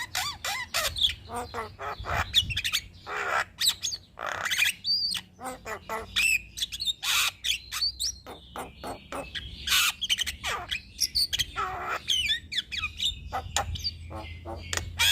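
Javan myna calling in a rapid, unbroken stream of harsh squawks, sharp clicks and short gliding whistled notes.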